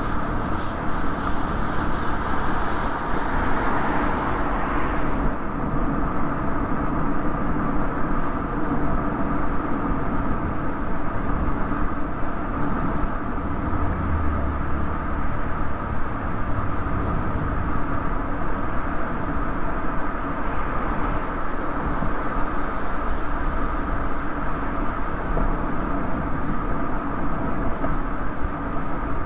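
Toyota Yaris driving along a road: steady tyre and road noise with wind, picked up by a microphone outside the car on its rear hatch. The noise swells briefly about four seconds in and again around twenty seconds.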